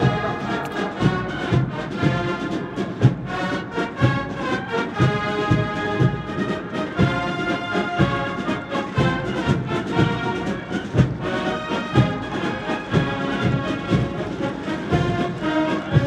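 Military brass band playing a march, with brass over a steady drum beat.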